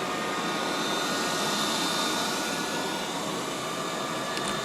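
Liectroux B6009 robot vacuum cleaner running: a steady suction-fan noise with a thin, high whine over it.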